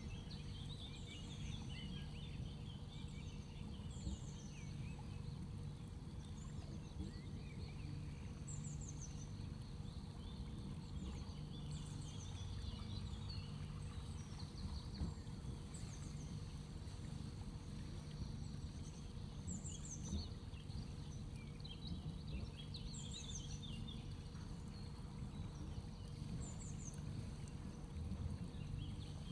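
A boat engine running steadily at low speed, a constant low hum, while small birds call over it with short high falling chirps every three or four seconds and softer twittering between.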